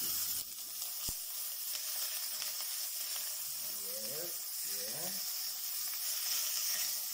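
Minced-meat burger patty sizzling in hot oil in a stainless steel pan, a steady frying hiss as its first side browns.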